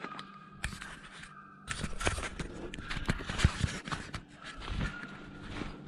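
Hurried footsteps crunching through dry pine straw and leaves, with brush scraping past close by. A few single steps come first; then, from nearly two seconds in, a dense run of crackling for about three seconds.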